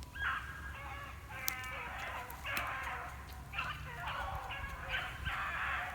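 A pack of beagles baying in a ragged series of short, repeated cries as they run a rabbit's trail, with the chase turning back toward the hunters.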